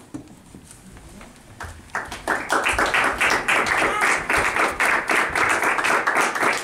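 Audience applause: a few scattered claps, then many people clapping together from about two seconds in.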